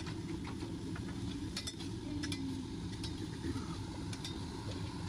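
Teppanyaki chef's metal spatulas clicking and scraping on the hot steel griddle while food sizzles, with a handful of sharp ticks over a steady low rumble.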